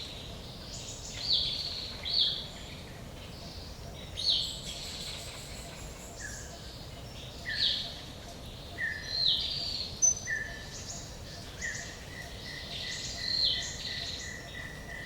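Forest birdsong: short, sharply falling chirps repeat every second or two. Midway a steady, fast-pulsed high trill comes in and keeps going, all over a faint even hiss of background noise.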